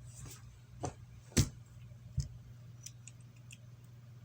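A few small sharp clicks and taps of LEGO plastic pieces being handled, the loudest about a second and a half in, with fainter ticks after, over a low steady hum.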